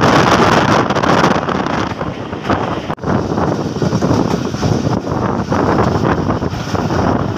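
Passenger train running at speed, its rumble heard through heavy wind buffeting a microphone held out of a coach window. The noise is loud and steady, with a brief break about three seconds in.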